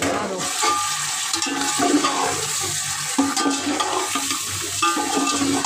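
Water poured into a large aluminium pot of frying chicken and masala and stirred with a metal ladle, a steady rush and bubbling of liquid. The water goes in because the masala is sticking to the bottom of the pot.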